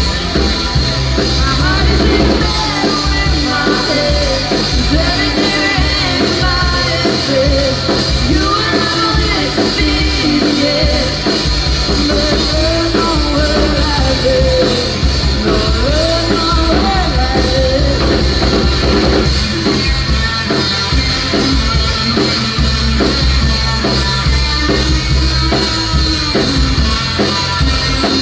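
Rock band playing live, with drum kit, bass and guitar. A singer's voice is heard over them for the first half or so, then the instruments carry on alone.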